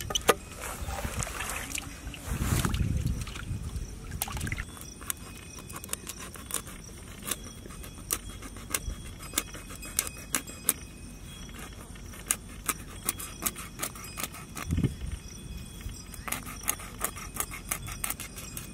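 A kitchen knife scraping the scales off a black pomfret, a run of short, crisp scratching strokes a few times a second. It follows a few seconds of louder handling noise.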